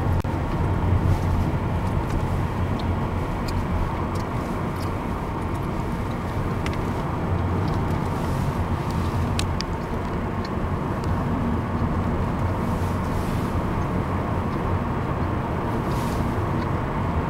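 Car driving along a road, heard from inside the cabin: a steady low engine hum and tyre and road noise.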